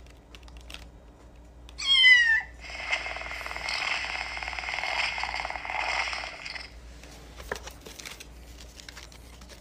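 Kitten birthday card's sound chip plays a single meow falling in pitch about two seconds in, then a recorded purr lasting about four seconds.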